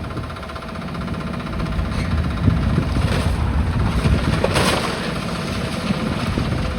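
Demolition machine's diesel engine running steadily, with crunching and clattering of debris as the building is broken up; the loudest crash comes about four and a half seconds in.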